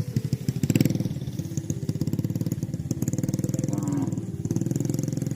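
A small engine running steadily with a rapid, even pulsing beat.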